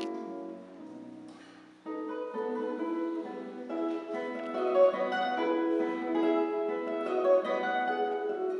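Classical nylon-string guitar played solo: a chord rings and fades into a brief pause, then about two seconds in the playing resumes with a flowing run of plucked notes.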